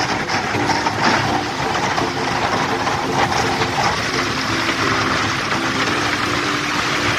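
A boat's engine running steadily as the hull pushes through thin skim ice and water, giving a continuous rushing, crackling hiss over the motor.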